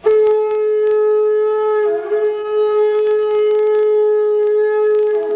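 Shofar (ram's horn) blown in one long, loud held note that dips briefly in pitch about two seconds in and again as it ends.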